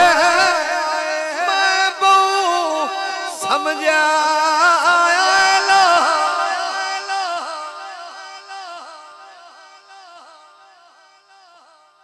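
A male naat reciter singing a long, ornamented melodic phrase in a devotional qaseeda. It is loud at first, then dies away steadily over the second half.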